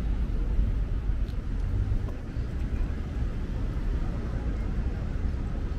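Steady low rumble of outdoor city background noise, with no distinct events.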